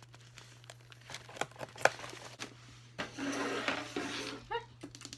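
Paper and packaging rustling as a letter and its envelope are handled, with scattered light taps and knocks, over a steady low electrical hum.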